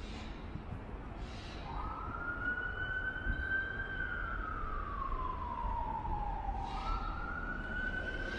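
Emergency vehicle siren wailing: the pitch rises about two seconds in, holds, falls slowly, then rises again near the end, over a low background rumble.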